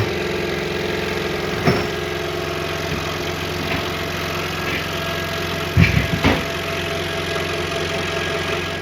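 Scroll saw running steadily, its reciprocating blade cutting through a stack of thin wood panels, with a few sharp knocks about two seconds in and again around six seconds in.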